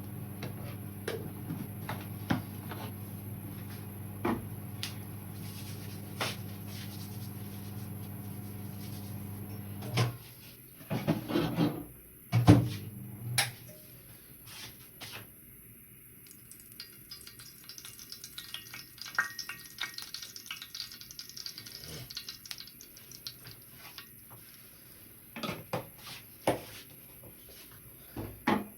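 Kitchen handling sounds: dishes and utensils clinking and knocking, with a cluster of loud knocks about ten seconds in and more near the end. A steady low hum runs under the first part and stops just before the first loud knocks, and a faint hiss follows in the middle stretch.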